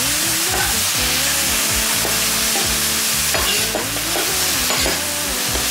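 Mung bean sprouts, garlic chives and leek sizzling on a hot stainless-steel teppanyaki griddle, with two metal spatulas tossing them and clicking and scraping against the plate.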